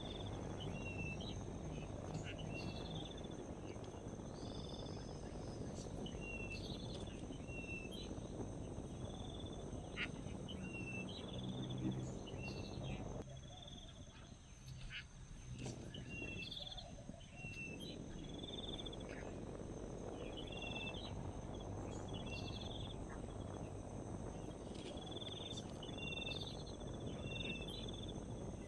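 Insects droning steadily, with short high chirps repeating every second or two over a low background noise that drops away for a few seconds midway.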